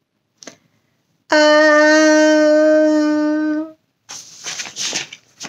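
A woman's long, steady, buzzy 'eeee' squeal through clenched teeth, held for about two and a half seconds as a mock cringe. Then paper rustles as a picture-book page is flipped, near the end.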